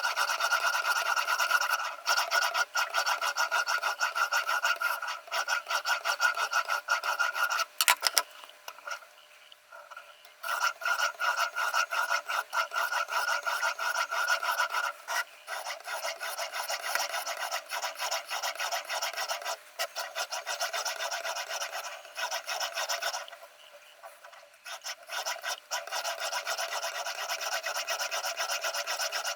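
Sharpening stone on a Ruixin Pro RX-008 guided sharpener rasping back and forth along the steel edge of a HEZHEN VG10 Damascus chef knife in quick repeated strokes. The strokes pause briefly twice.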